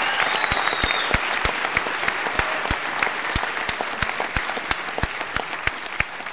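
Audience applauding, with one pair of hands clapping close by at a steady rate of about three claps a second. The applause thins out near the end.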